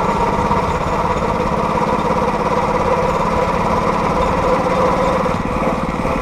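Small engine running steadily with a fast, even firing beat, driving a vehicle along a railroad track.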